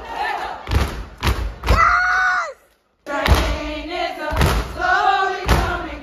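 Step team stomping in unison, with sharp, heavy thumps every half second or so, and voices chanting and calling out together between the stomps. The sound cuts out for a moment near the middle.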